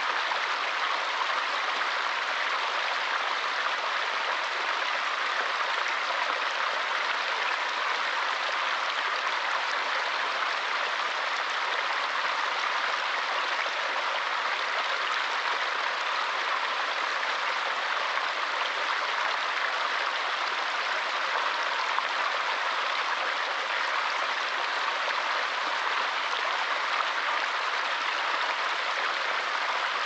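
Small forest stream splashing down a short cascade over rocks and a fallen log, a steady, even rush of water.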